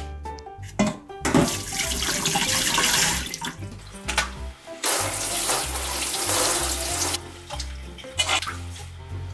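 Kitchen tap water running into a stainless steel sink as vegetables are rinsed, in two spells of about two seconds each, with background music underneath.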